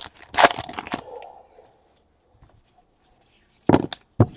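Foil trading card pack wrapper torn open with a short crinkly rip about half a second in, then a couple of brief sharp sounds of the cards being handled near the end.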